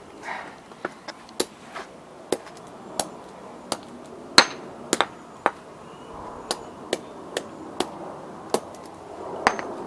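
A hammer striking a plastic Rubik's cube and its broken pieces: a series of sharp knocks at uneven intervals, about one or two a second, the loudest about four seconds in.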